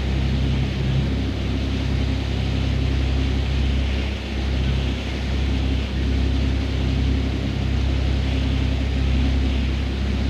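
Fishing boat's engine running steadily while trolling, a low even hum, with a steady hiss of water and wind over it.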